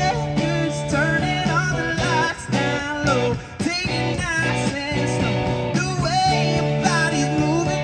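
Live rock band playing through a PA: drums, electric bass and acoustic guitars, with a melody line over them. The sound briefly drops twice around the middle.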